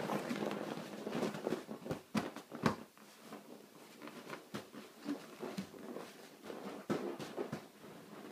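Soft pats, thumps and rustling from a baby pushing and leaning on a large stuffed fabric basketball on a foam play mat. The knocks come in irregular clusters, busiest in the first three seconds, with the firmest thump just before the three-second mark.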